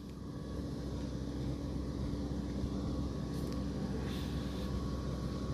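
Generator engine running steadily with an even low hum.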